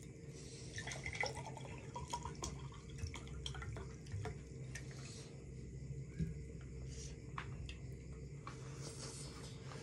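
Quiet eating sounds of chicken biryani being chewed: scattered small clicks and wet mouth noises over a steady low hum.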